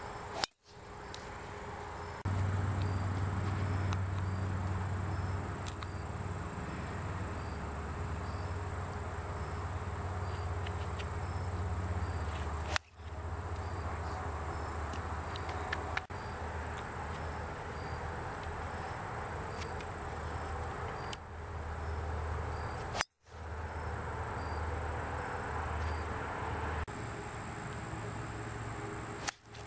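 Golf clubs striking balls off the tee: a few sharp cracks, several seconds apart, each followed by a brief dropout. Between them, wind rumbles on the microphone and insects chirp in a steady, regular rhythm.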